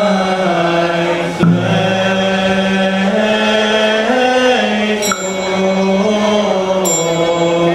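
Buddhist liturgical chanting, led by a monk's voice over a microphone, in long held notes that rise and fall slowly. Three sharp struck notes cut in: about a second and a half in, about five seconds in, and near the end.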